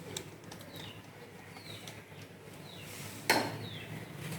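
Metal cooking utensils handled, with small clinks and then one sharp metal clang about three seconds in, like a spoon knocking against a steel pot as ground paste is put in. Faint high falling chirps in the background.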